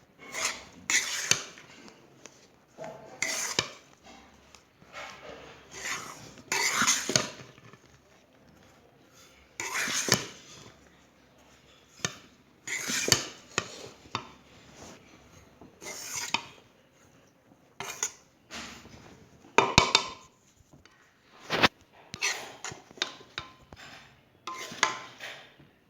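A spatula scraping and clattering against a kadai in irregular strokes, stirring a dry coconut mixture.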